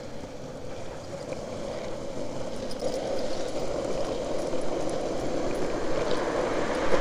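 Longboard wheels rolling on asphalt with rushing wind noise, growing steadily louder as the board picks up speed downhill.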